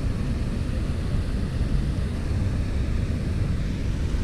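Wind buffeting the camera microphone: a steady low rumble with no distinct events.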